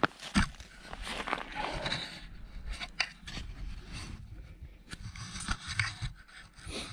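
Boots crunching on snow-covered lake ice, with a string of scrapes and knocks as an action camera is picked up and handled.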